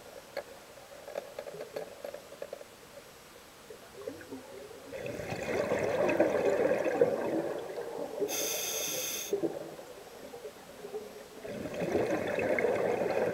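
Scuba diver breathing through a regulator underwater: quiet for the first few seconds, then a burst of exhaled bubbles, a short high hiss of an inhale through the regulator, and another bubbling exhale starting near the end.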